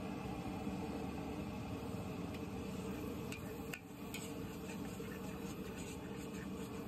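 Mee goreng noodles frying in a large wok, a steady sizzle. A metal spatula scrapes and clinks against the wok a few times around the middle as the noodles are stirred and tossed.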